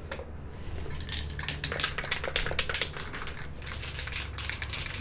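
A rapid, irregular run of light clicks and rattles over a low steady hum, stopping abruptly at the end.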